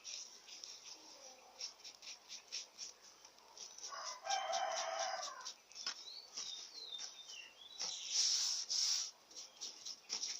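Sticky slime clicking and crackling as it is stretched and kneaded with glitter worked in. Around four seconds in, a rooster crows once in the background for over a second. Small birds chirp briefly soon after.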